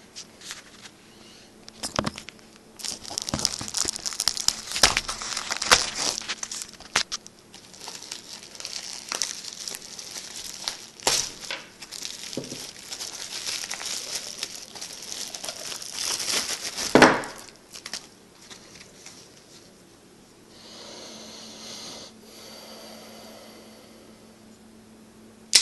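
Plastic bag packaging crinkling and tearing in irregular bursts as it is cut open and pulled off a small part, with one sharp knock about seventeen seconds in, then a quieter stretch of light handling.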